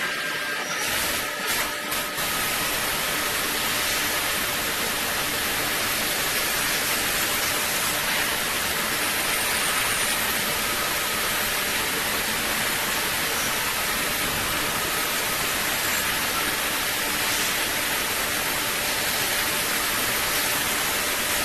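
DMG MORI vertical machining centre running a cut on a small part: a steady hiss with faint steady tones from the spindle and machine, with a few light clicks in the first couple of seconds.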